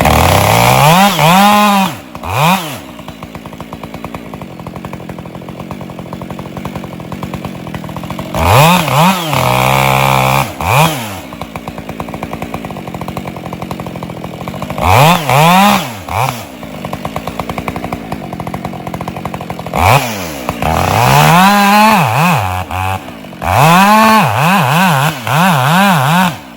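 Husqvarna 572 XP two-stroke chainsaw revving up in short bursts and dropping back to idle between them, about five times, with several quick blips of the throttle near the end.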